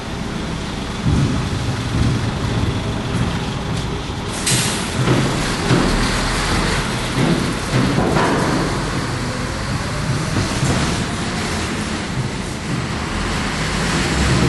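Double-deck thruster ferry ms Prins Johan Friso at work: a deep machinery rumble under a loud rushing noise, which swells brighter about four seconds in, with occasional knocks.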